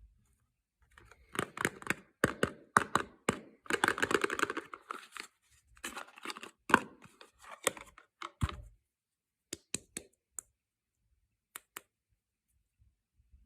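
Soap packaging being torn open and crinkled by hand, a crackling rustle broken by sharp clicks for the first several seconds, then a few isolated light clicks and taps near the end.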